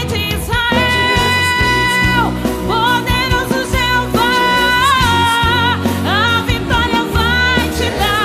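A female vocalist sings a gospel song over an instrumental backing track. She holds long notes and slides up between them.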